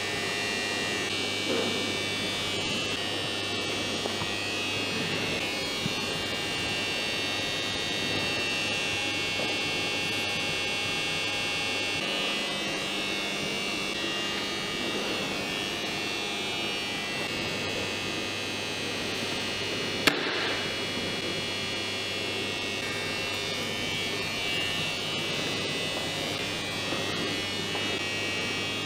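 Steady electrical hum with a constant high-pitched buzz over it, and a single sharp click about twenty seconds in.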